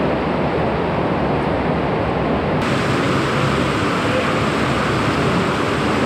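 Water rushing steadily through a stone-vaulted river culvert, a dense even noise with no distinct events. It turns a little brighter and hissier about two and a half seconds in.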